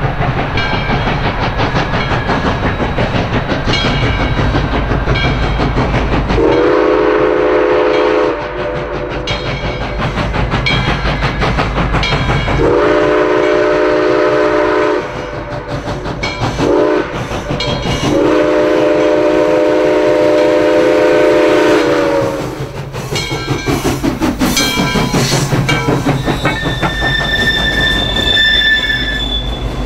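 Southern Railway 630, a 2-8-0 steam locomotive, working steadily with rhythmic exhaust chuffs while its chime whistle sounds the grade-crossing signal: long, long, short, long. The chuffing grows louder as the engine passes close, and a high squeal sounds near the end.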